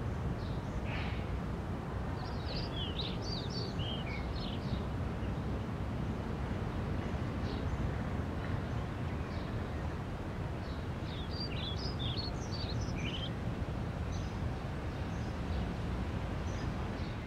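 Outdoor ambience: a steady low background rumble with small birds chirping in two short flurries, about two seconds in and again about eleven seconds in.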